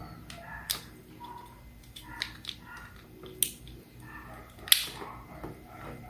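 Small plastic inline cord switch being handled and its cover fitted: a handful of sharp plastic clicks and taps, the loudest a little before the end.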